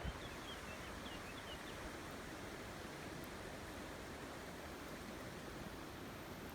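Steady rushing of the Drôme river's flowing water, an even hiss with no pauses. A few faint high chirps sound in the first second or so.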